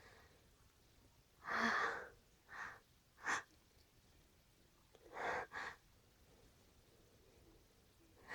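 A person's breathy gasps and short sneeze-like bursts: a longer one about one and a half seconds in, a sharp one near three seconds, a close pair past five seconds, and another at the very end.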